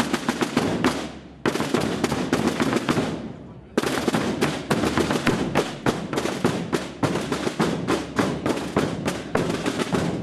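Rapid drumming in three runs of dense strikes. The first two die away within about a second, and the third starts suddenly about four seconds in and keeps up a quick beat.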